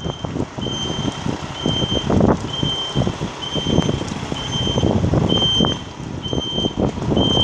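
Backup alarm beeping steadily, one high beep a little under a second apart, over an uneven mechanical rumble and knocking.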